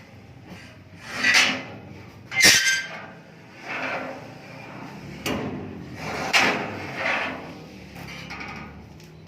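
A sheet-metal block-ice cutting machine being worked. There are repeated sliding, scraping strokes about a second apart, with one sharp metallic knock about two and a half seconds in.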